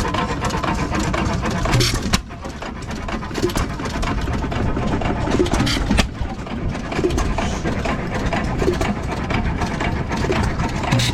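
Several antique stationary gas engines of the hit-and-miss type running together, a dense, continuous mechanical din. There are sharp knocks about two seconds in and again about six seconds in.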